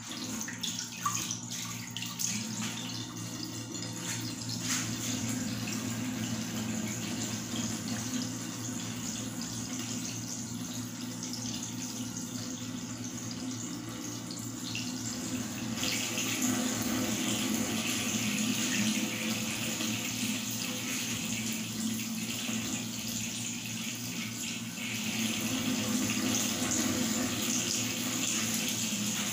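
Bathroom tap running into a sink: a steady rush of water that grows louder about halfway through.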